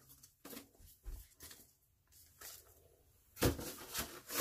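Faint handling sounds of items being picked up and set down: a few soft taps and a low thump, then a louder knock about three and a half seconds in, followed by rustling.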